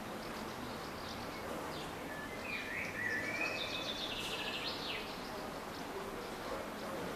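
Forest ambience: a steady background hiss with small birds singing, loudest in the middle, where one bird gives gliding whistled notes followed by a fast trill.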